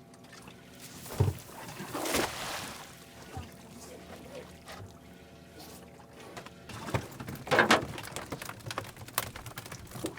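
Water splashing and pouring, with a thump about a second in, a louder splash around two seconds and another past seven seconds, then a patter of small splashes and drips.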